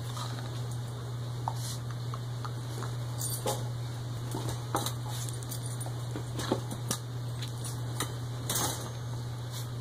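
A puppy and an adult dog play-wrestling on a bed in a wire crate: scattered light knocks, scuffles and metallic jingles, over a steady low hum.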